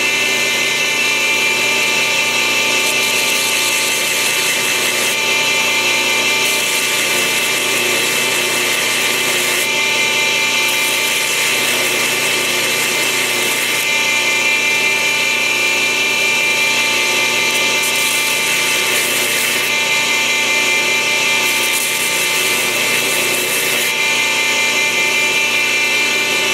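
Belt grinder running with a steady motor-and-belt whine, as the steel fittings of a bayonet hilt are pressed against the abrasive belt. A high grinding hiss comes and goes as the metal is put on and lifted off.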